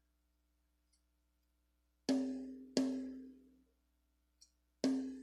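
Rototom with a double-ply film head struck three times, each hit a sharp pitched tone that rings and fades over about a second. These are test hits while the drum is being tuned with a drum key.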